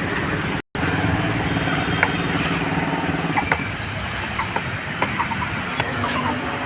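Steady motor-vehicle engine and road-traffic noise, with scattered light clicks and short high chirps. The sound cuts out completely for a moment a little under a second in.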